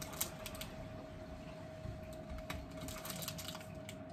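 Scattered light clicks and crinkles of small moped parts being handled and unwrapped by hand, over a faint steady hum.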